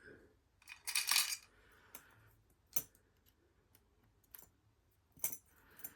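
Metal lock picks and a tension tool clinking and clicking against a steel padlock during picking. There is a louder clatter about a second in, then a few scattered sharp clicks.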